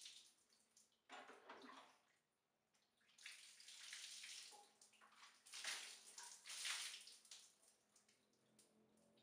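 Faint splashing and pouring of water as a man bathes, in three bouts of a second or two each with short pauses between.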